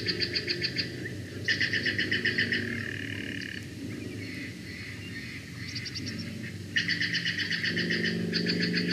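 A bird calling in quick trilled runs of repeated notes, about eight a second, in several bouts, the longest near the end. A low steady hum runs underneath.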